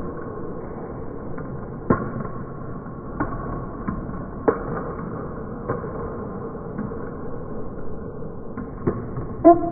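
Table tennis rally: sharp, irregular clicks of celluloid/plastic balls struck by rubber-faced bats in forehand topspin drives and bouncing on the table, roughly one every half second to second, over a steady low hum.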